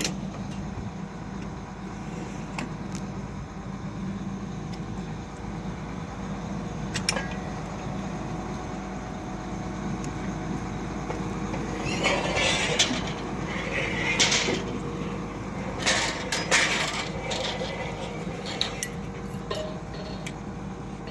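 Diamond core drilling rig's power unit running steadily, with intermittent metallic clinks and clanks of steel drill rods and fittings being handled, bunched together in the second half.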